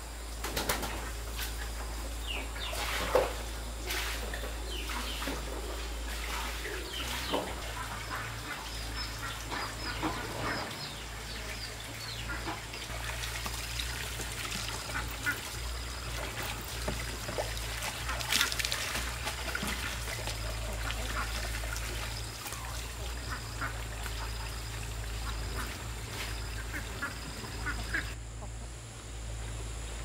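Ducks quacking on and off, in many short scattered calls.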